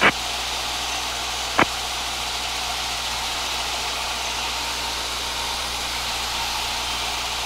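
Steady engine, propeller and wind noise inside the cabin of a Piper PA-22/20 Pacer with a 135 hp engine, climbing at low speed. Two short sharp clicks, one at the very start and one about a second and a half in, stand out above it.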